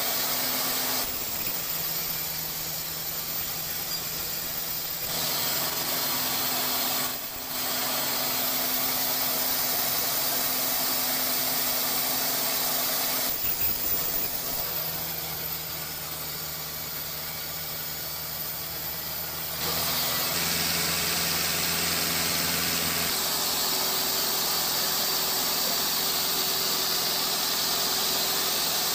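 Sawmill ring debarker running, its rotating ring of arms stripping bark from a log as it feeds through: steady machine noise with a low hum and a strong high hiss. The sound shifts abruptly several times.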